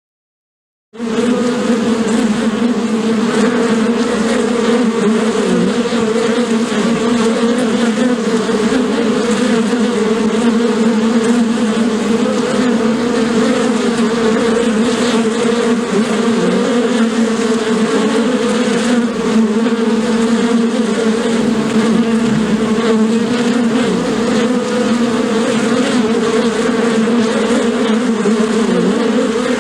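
Many bees buzzing together in a steady, low, wavering hum that starts suddenly about a second in.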